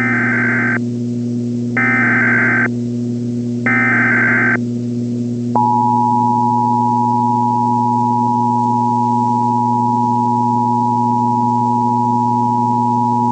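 Emergency Alert System activation: three short bursts of SAME header data, each under a second, then the steady two-tone EAS attention signal, about eight seconds long, starting about five and a half seconds in. A steady low hum runs underneath.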